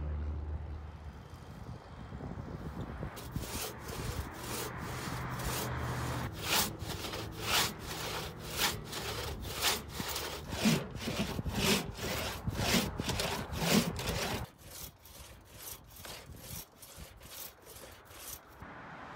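A long two-man crosscut saw, worked by one person, cutting through a large log by hand in regular back-and-forth strokes, about one a second. The sawing stops about three-quarters of the way through, and only quieter sounds follow.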